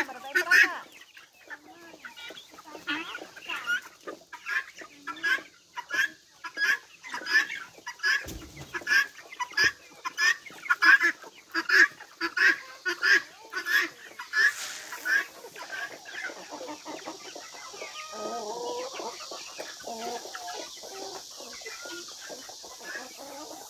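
A flock of young chickens clucking and calling, with many short calls about two a second for the first fifteen seconds, then softer, lower calls.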